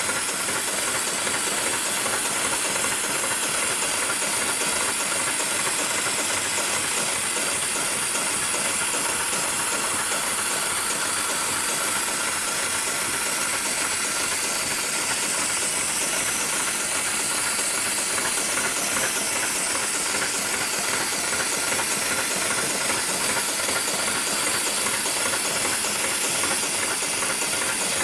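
GLK911 programmable heavy-duty sewing machine running continuously, a steady mechanical hiss and rapid stitching noise without pause.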